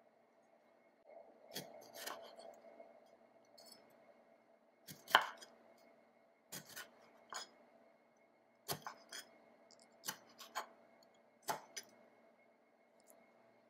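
Kitchen knife slicing a pickle on a wooden cutting board: about a dozen sharp, separate chops at an uneven pace, the loudest about five seconds in, over a faint steady hum.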